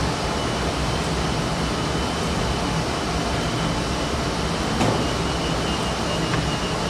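Sheetfed offset printing press running steadily: a continuous machine noise with a low hum. A short rustle of paper sheets being handled comes about five seconds in.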